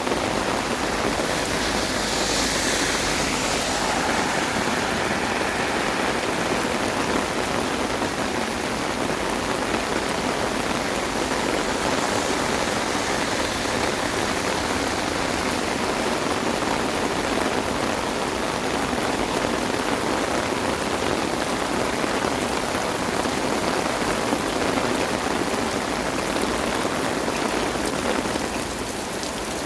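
Heavy rain falling steadily, a dense hiss of drops on surfaces, dipping slightly in level near the end.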